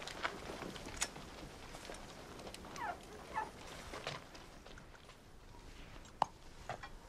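Two short, high animal cries about three seconds in, each sliding down in pitch, among scattered sharp knocks and clicks over a faint outdoor background.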